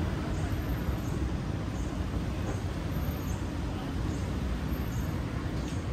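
Steady low rumble of roadside street noise, mainly passing traffic, with no single event standing out.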